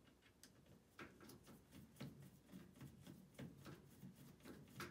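Faint, irregular clicks and taps of a Phillips screwdriver working the washer drain pump's mounting screws, a few times a second.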